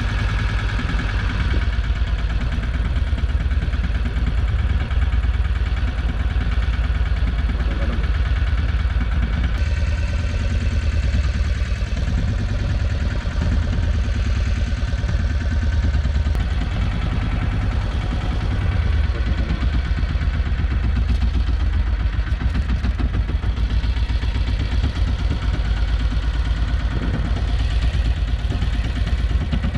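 Outboard motor of a small fishing boat running steadily under way, a constant low engine drone.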